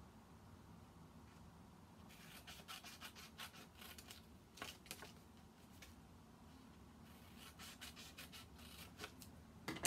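Small scissors cutting diagonal slits into a square of paper: faint crisp snips in two runs, one starting about two seconds in and another near the end.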